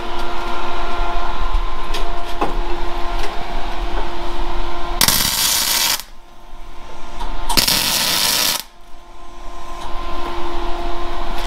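MIG welder tack-welding a steel angle-iron rotisserie mount to a car's front rail: two welds about a second each, roughly a second and a half apart, over a steady hum.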